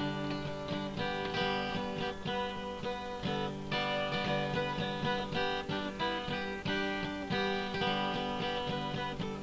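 Background music: an instrumental played on a plucked string instrument, with many quick picked notes.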